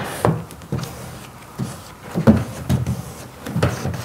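Felt-edged plastic squeegee wiping application fluid out from under a wet vinyl stripe on a metal tailgate panel: a run of short, irregular rubbing strokes.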